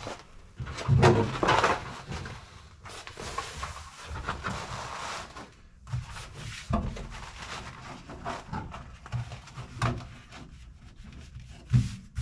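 New trunk mat being spread, slid and pressed flat by hand over the trunk floor: irregular rustling and rubbing, loudest about a second in, with a few soft thumps as the hands press it down.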